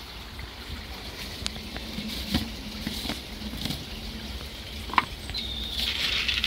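Water steadily trickling into a garden koi pond, with scattered small splashes and ticks, a sharp click about five seconds in and a short higher-pitched rasp near the end.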